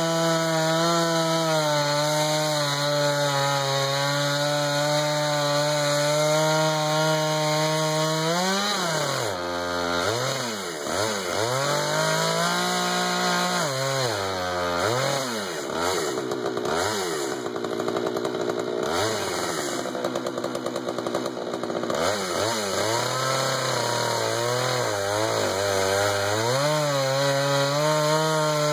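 Jonsered 2091 93 cc two-stroke chainsaw running in a mini mill, ripping lengthwise through a pine cant with a rip chain. The engine note holds steady at first, then from about a third of the way in its speed dips and rises again and again, before settling into a steadier note with small wobbles near the end.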